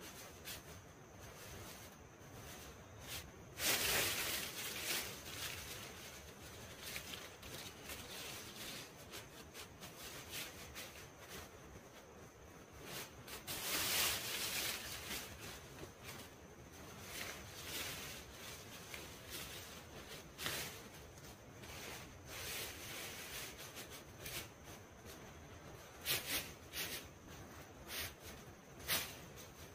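Leafy green branches rustling and swishing as they are handled and pushed into the stick walls of a shelter, in a series of separate rustles; the loudest come about 4 seconds in and again around 14 seconds.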